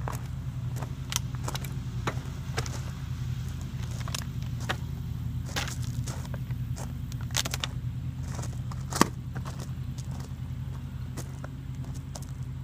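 Steady drone of a lawn mower engine running in the background, with scattered sharp clicks and taps on top, the loudest about nine seconds in.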